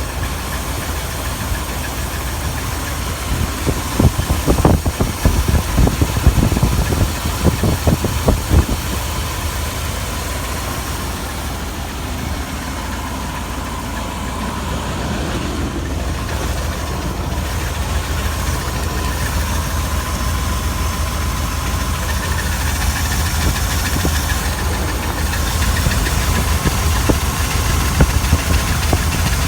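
Chrysler 318 small-block V8 idling steadily, with a faint, thin, high squeal over the engine note: the odd squeal the owner is trying to pin down. A cluster of sharp knocks comes about four to nine seconds in.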